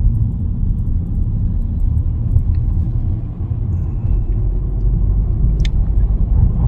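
Steady low rumble of a car driving through city streets, heard from inside the cabin, with a brief click a little before the end.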